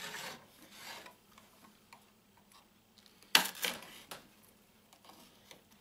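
Pocket-knife blade prying and scraping under an LCD panel to break it free of the adhesive holding it to a circuit board. It comes in short scratchy bursts with small clicks between: one at the start and the loudest about three and a half seconds in.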